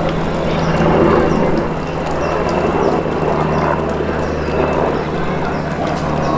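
A steady low mechanical drone over general outdoor background noise, with faint high chirps here and there.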